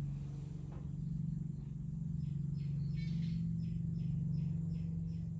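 Steady low hum, with a run of short, high chirps repeating about three times a second from about two seconds in.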